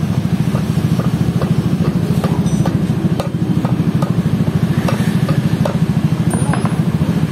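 An engine idling steadily with an even, rapid pulse, with light metallic clicks as engine parts are handled.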